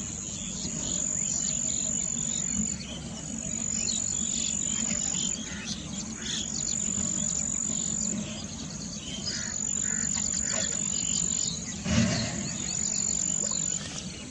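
Insects trilling: a high, steady buzz in long bouts of a second or two, breaking off briefly between bouts, with scattered small bird chirps beneath. A brief louder noise comes about twelve seconds in.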